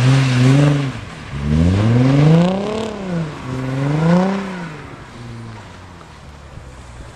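Audi A4 sedan's engine revving up and down in two long swells as the car slides around on packed snow, then dropping away as the car moves off.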